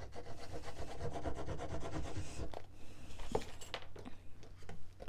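Tip of a squeezed plastic glue bottle dragged along kraft cardstock while laying a bead of glue: a rapid, scratchy rubbing for about two and a half seconds, followed by a few light clicks and taps as the card and bottle are handled.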